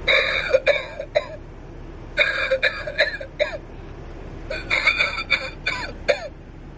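Novelty lung-shaped ashtray playing recorded coughing, set off by a cigarette resting in its trough: three fits, each a quick run of several coughs, with short pauses between them.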